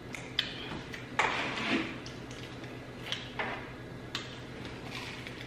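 People chewing food loudly at close range, with wet mouth smacks and clicks coming irregularly and one longer, louder noisy smack about a second in.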